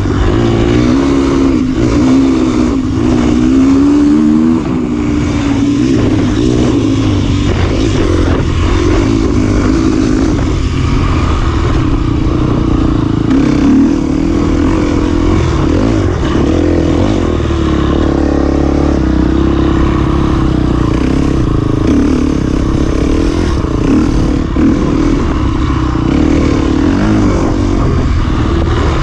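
Dirt bike engine running loud as the bike rides a dirt trail, its pitch rising and falling with the throttle, most strongly in the first few seconds.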